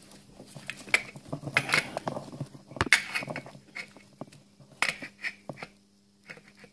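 Hands handling wires and plastic connectors in a wiring harness: rustling and small irregular clicks, with one sharper click about three seconds in.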